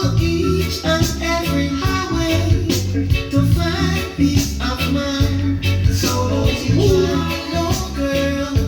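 Reggae music with a heavy bass line, a steady offbeat rhythm and a singing voice.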